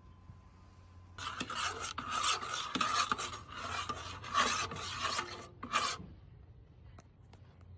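Hand saw cutting through wood: a quick run of rasping back-and-forth strokes that starts about a second in and stops about six seconds in.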